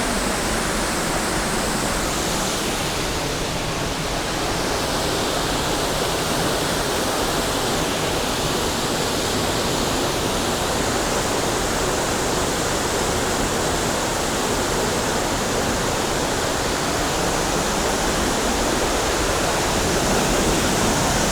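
Waterfall on a mountain creek, its water pouring and splashing as a steady, loud rush of noise.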